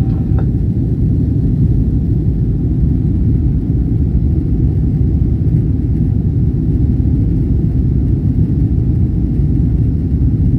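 Steady low rumble of a Boeing airliner's engines and rushing air, heard from inside the passenger cabin during the climb after takeoff.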